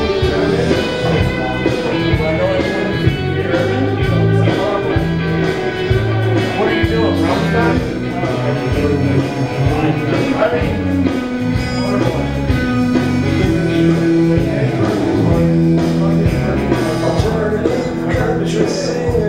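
Karaoke: a man singing into a microphone over a recorded backing track with guitar and a steady beat, played loud through a bar PA.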